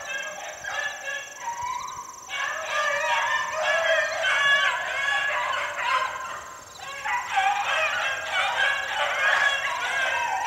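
A pack of beagles baying on a rabbit's trail, several hounds giving voice at once in overlapping calls. The calling eases off briefly about two seconds in and again past six seconds.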